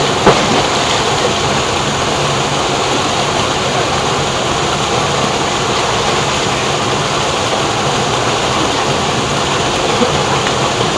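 Small waterfall cascading over rocks into a pool: a steady, even rushing of water, with one short knock just after the start.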